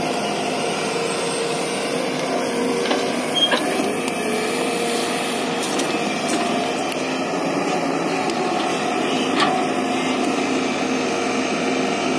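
JCB tracked excavator's diesel engine running steadily while the arm digs and swings, with two brief knocks about three and a half and nine seconds in.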